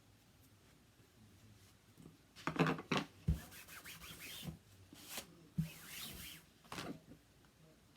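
Paper and cardstock being handled and rubbed in short bursts of rustling, with a couple of light knocks against the work surface.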